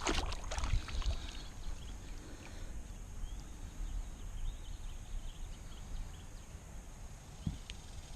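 Water splashing, loudest at the very start, then faint river water with scattered small ticks over a low rumble, and a single low thump near the end.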